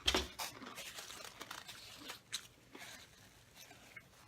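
Eating potato chips: a sharp crunch at the start, then faint irregular crackles and crinkles that die away about three seconds in.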